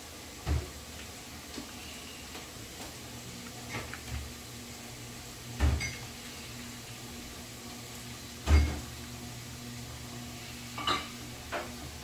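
A kitten leaping at and batting a toy dangling from a wand: about seven scattered soft thumps and knocks, the loudest about eight and a half seconds in, over a low steady hum.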